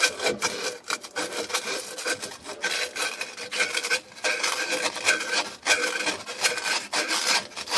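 A strip of emery cloth rasping back and forth around the cut end of an old copper water pipe in rapid strokes. It is polishing off burrs and surface corrosion to give a clean seating surface for a SharkBite fitting's O-ring.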